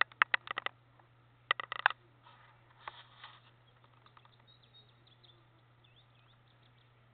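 Cottontail rabbit chewing its food: crisp crunches in two quick bursts in the first two seconds, then a few scattered ones.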